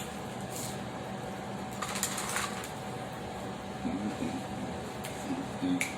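Close-miked chewing and crunching of fried food, in a few short crunches over a steady low hum, with some low humming near the end.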